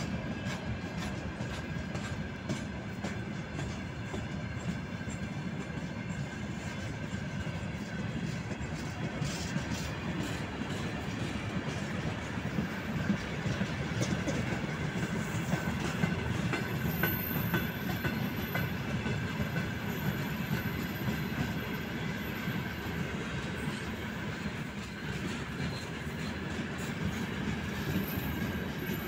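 Freight train of open gondola wagons rolling past: a steady rumble of steel wheels on rail with a faint clatter of wheels over rail joints. A thin high wheel squeal comes and goes in the second half.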